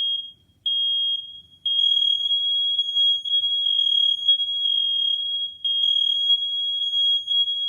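Interconnected household smoke alarms sounding on test: a shrill high-pitched beep, two short beeps and then several alarms overlapping into a near-continuous wavering tone.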